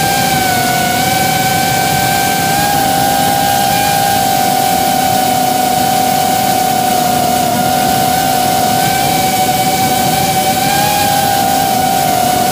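A 3-inch FPV racing drone's brushless motors and propellers give a steady whine at cruising throttle, heard close up through the drone's onboard camera. The pitch holds almost level, with only small wavers.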